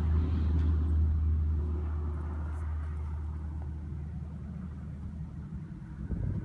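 Low engine rumble of a passing motor vehicle, loudest at first and fading steadily.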